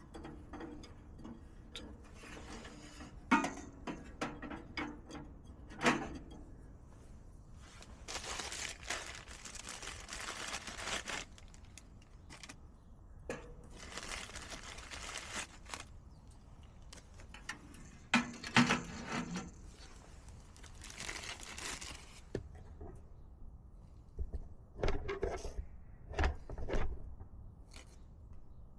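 Handling noises while working with camp gear: several sharp knocks and clinks, with stretches of rustling or scraping in between and a quick run of knocks near the end.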